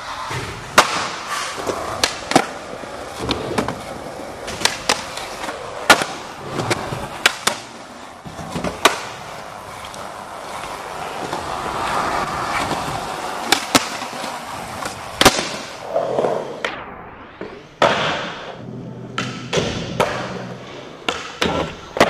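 Skateboard wheels rolling on smooth ground, broken by repeated sharp clacks of the board: tail pops and landings of flip tricks, with grinds and slides against ledges.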